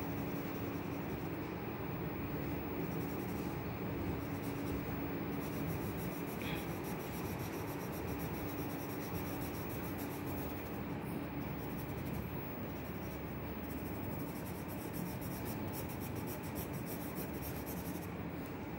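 Pencil scratching across sketchbook paper in repeated shading strokes.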